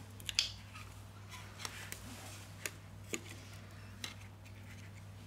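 Light clicks and taps of a Huawei Mate 20's glass back cover and phone body being handled and pressed down on a bench, about seven scattered ticks, the loudest near the start, over a steady low hum.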